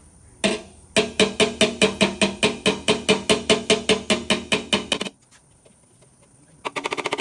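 Blending hammer tapping down high spots on a metal motorcycle fender in paintless dent repair: a steady run of about four or five ringing taps a second, then after a pause a quick flurry of lighter rapid taps near the end.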